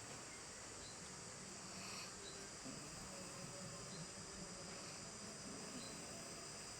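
Insect chorus: a faint, steady high-pitched drone.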